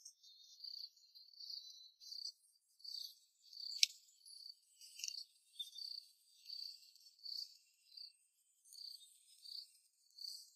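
Insects chirping in the garden: faint, high-pitched chirps repeating about one and a half times a second, with a single sharp click just under four seconds in.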